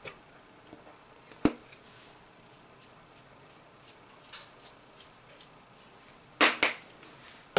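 Small hand-handling sounds while dried basil and oregano are sprinkled: a sharp click about a second and a half in, scattered faint ticks and rustles, and a brief louder rustle near the end.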